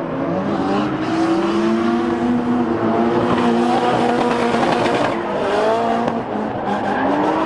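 Two drift cars sliding in tandem, engines revving hard and held high, the pitch swinging up and down as the drivers work the throttle, over the hiss and squeal of tyres spinning sideways.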